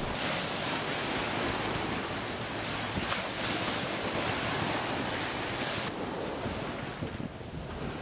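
Steady rushing noise of wind and water, with wind buffeting the microphone; the high hiss drops away about six seconds in.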